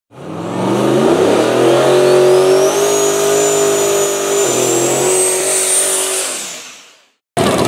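Car engine revving up and held at high revs, with a dip about four and a half seconds in, then fading out near the end. A thin whine rises in pitch above it.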